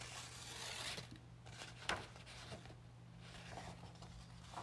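A sheet of paper sliding and rustling: a dry hiss for about a second, then a sharp tap near two seconds in and a few faint ticks.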